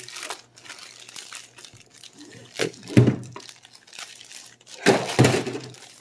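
A plastic zip-top bag crinkles and rustles as it is handled and the coiled flat Ethernet cable is pulled out of it. There are two louder bursts of crinkling, about three and five seconds in.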